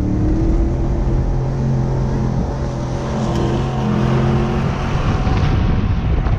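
Ford F-150's 5.0 V8 engine held at high revs, its pitch climbing just before and then staying steady, while the truck spins donuts on loose beach sand. From about three seconds in, a rising hiss of spinning tyres throwing sand joins it.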